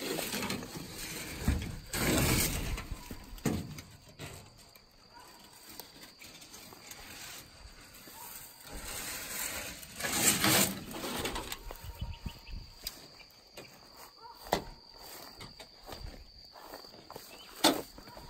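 Corrugated metal roofing sheets used as snake cover being handled and lifted off dry grass: rustling, scraping and rattling of the tin, loudest about ten seconds in, with footsteps through brush and a few sharp clicks near the end. A steady high insect whine runs underneath.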